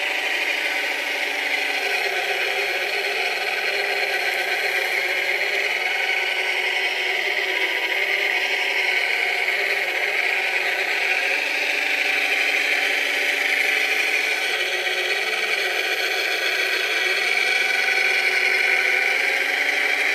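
Electric drive motors and gearing of a scale-model Cat 966 wheel loader whining steadily, the pitch wavering a little as it drives and works its bucket, with rattling and scraping of the bucket in loose dirt.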